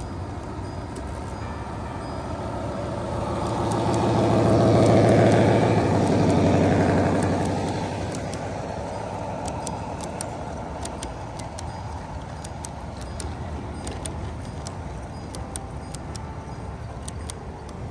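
Model train running past at close range: a rumble of motors and wheels on the track that swells as the locomotive and cars go by, loudest a few seconds in, then eases back, with light clicks of the wheels on the rails as the cars roll on.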